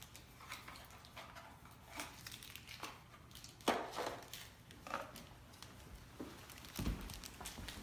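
Small hardware and plastic packaging being handled: scattered crinkling and light clicks, with a few dull bumps near the end.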